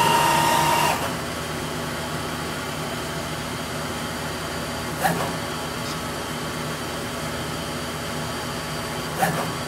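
Hardinge HLV CNC lathe running a cone-facing cycle on a rifle barrel: a steady machine hum and whine with a hiss, the tool mostly cutting air. A louder hiss with a high whistle fills about the first second, and two brief ticks come about five and nine seconds in.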